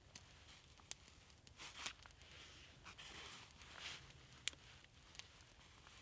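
Faint crackling of a small kindling fire of fine twigs catching, with soft rustling of twigs being fed in and a few sharp snaps, the loudest about four and a half seconds in.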